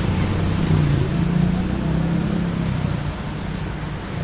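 Fuel-injected engine running with a steady low hum, a little louder for a couple of seconds before easing back.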